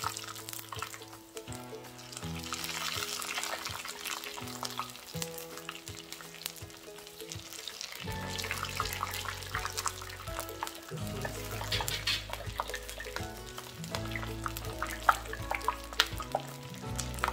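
Battered vegetable tempura deep-frying in a small pot of hot oil, sizzling with many small crackles, under background music whose bass line comes in about eight seconds in.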